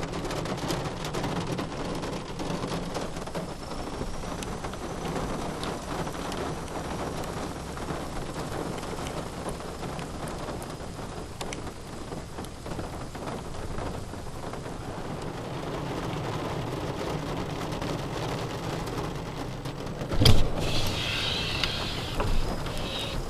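Steady rain falling, with a low steady rumble underneath. A single sudden loud thump comes about twenty seconds in.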